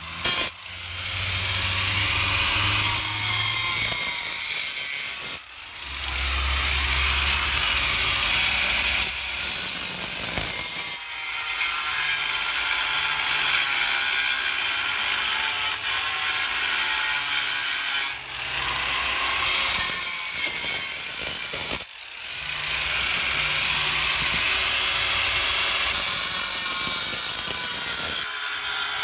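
Ryobi angle grinder cutting into a granite stone, a loud, steady, harsh grinding noise broken by brief dips every few seconds.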